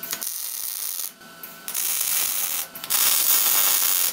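MIG welder tacking square steel tubing onto a truck frame rail: the arc crackles and sizzles in three bursts of about a second each, with short pauses between them.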